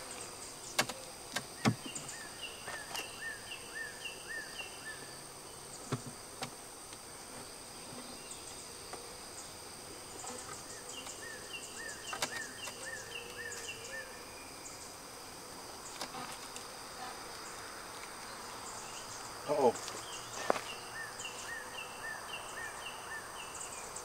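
Steady high-pitched insect chorus in the background. A short run of six or seven quick chirps comes three times, about every nine seconds, and scattered light clicks and knocks sound over it.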